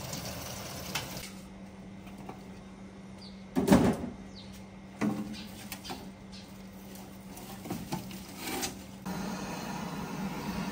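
Scattered knocks and clicks of objects being handled, the loudest a heavy thump about three and a half seconds in and another about five seconds in, over a steady low hum.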